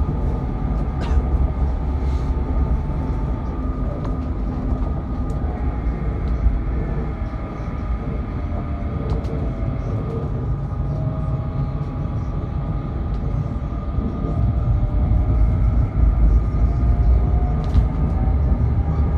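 Tram running along its rails, heard from on board: a steady low rumble of wheels on track, with a faint whine that slowly rises and falls in pitch and a few light clicks. It grows somewhat louder near the end.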